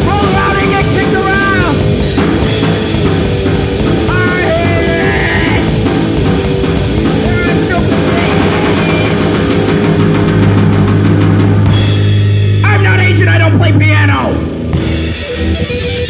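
Heavy metal / punk rock song: distorted guitars over a drum kit, with a long held low bass note a little past halfway. The full band drops away about two seconds before the end, leaving a quieter, thinner part.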